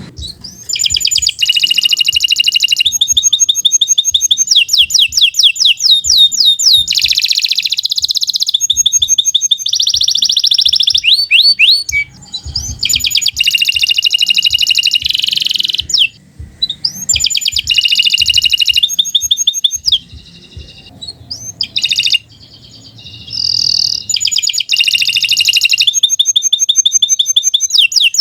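Domestic canary singing a long, loud song of fast trills and rolls, each run of rapidly repeated notes lasting a second or so before switching to another, with a few brief pauses.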